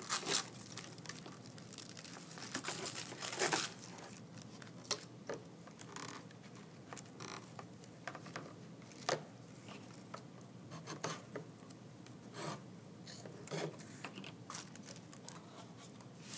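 Glued-on tissue paper being torn away from the edges of a small wooden cutout: short rips and crinkles at irregular intervals, the loudest in the first few seconds. Later, an emery board is rubbed along the paper edges to clean off the ragged bits.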